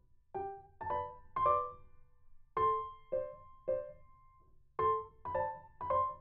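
Soft background piano music: single notes played one at a time in short phrases, each note dying away before the next.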